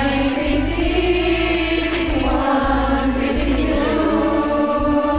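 Several women singing together over a karaoke backing track, holding long sung notes in a group recording mixed from phone microphones.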